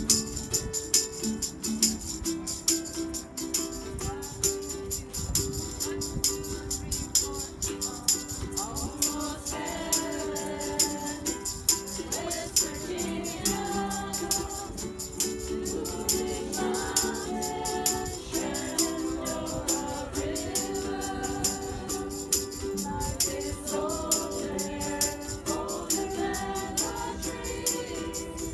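A group of ukuleles strumming chords together, with hand percussion keeping a steady beat. Group singing joins in about eight seconds in and carries on.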